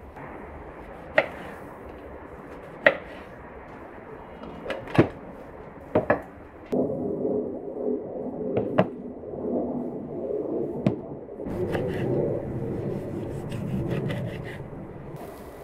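Kitchen knife working on a wooden cutting board. It gives separate sharp knocks against the board over the first few seconds. After that comes a longer stretch of dense scraping and slicing through vegetables, with a few more knocks.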